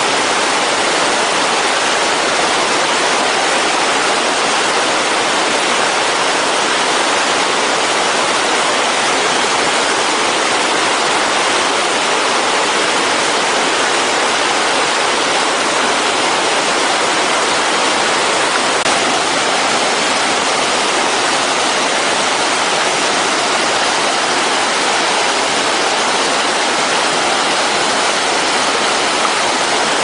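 Mountain stream rushing over boulders in a small cascade: a steady, loud, unbroken rush of white water close by.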